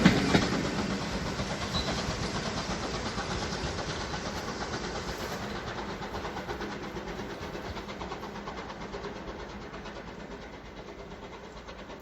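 A train running away down the line, its sound fading steadily into the distance, with a fast patter of wheel clicks over the rail joints.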